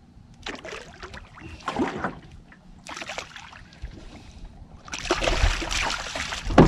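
Hooked fish splashing at the surface beside a small boat in short bursts, with the longest and loudest splashing near the end as it is brought alongside. A heavy thump comes right at the end.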